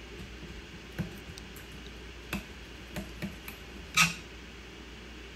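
A knife tapping and clicking on a cutting board as rib bones are cut out of a fish fillet: a handful of light, scattered taps, the sharpest about four seconds in, over a low steady room hum.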